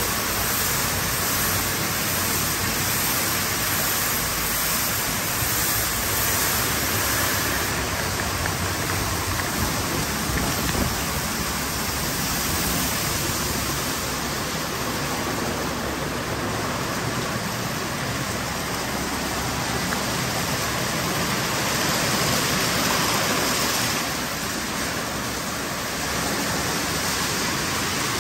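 Steady rush of water spray inside a MacNeil tunnel car wash, with the cloth wraparound brushes spinning against a vehicle as it passes through.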